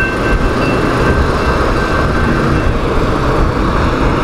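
A grade-crossing warning bell ringing as a steady high tone that fades and stops about two and a half seconds in as the gates rise. Underneath is a steady low rumble of vehicles starting across the tracks.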